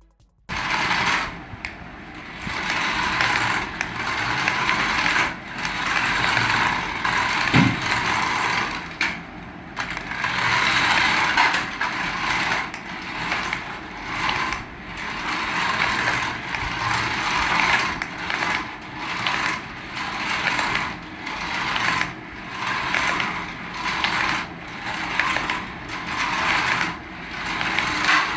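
Toy remote-control car's small electric motor and gears whirring as it is driven, in repeated surges about a second apart.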